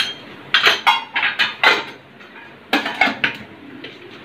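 Metal clinks and clatter from a steel masala spice box, its small cups and lid knocking together as it is handled and closed. A quick run of clinks comes first, then a pause and a shorter second run.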